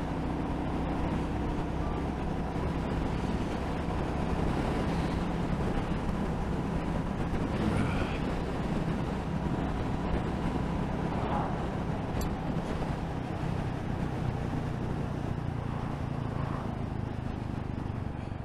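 Motorcycle engine running steadily at cruising speed, with the rush of wind and road noise over it.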